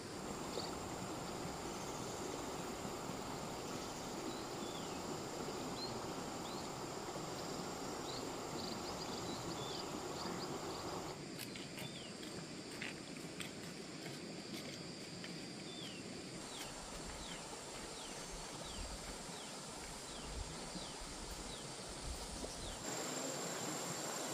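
Outdoor countryside ambience: a steady rushing noise with insects and many short, repeated high chirps over it. The mix changes abruptly twice.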